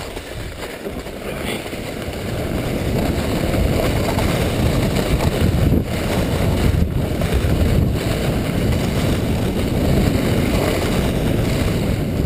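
Luge sled sliding down groomed corduroy snow: a steady rumble of the runners on the snow mixed with wind on the microphone. It builds over the first few seconds as the sled picks up speed from a standstill, then holds steady.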